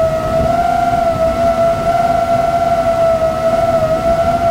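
DJI FPV drone's motors and propellers whining in steady flight: one constant high hum whose pitch wavers slightly up and down.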